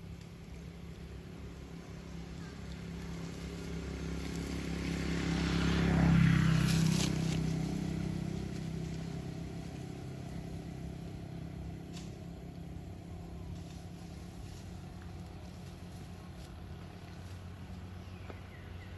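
A motor vehicle passing by on the road: its engine and tyre noise swell over a few seconds, peak about six seconds in with a falling pitch, then fade away.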